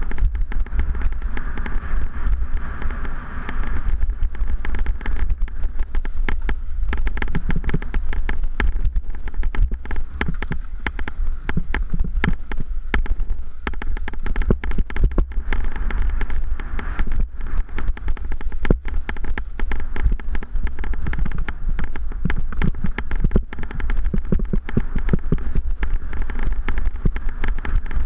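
Mountain bike ridden fast over rough dirt singletrack, heard through a handlebar-mounted camera: continuous wind rumble on the microphone with dense, irregular rattling and knocking from the bike and mount over bumps.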